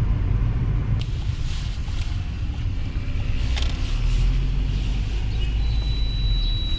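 Cabin noise in a Mercedes-Benz W202: steady low vehicle rumble with a couple of light knocks. Near the end a thin, steady high whistle sets in, which the owner places somewhere around the glovebox.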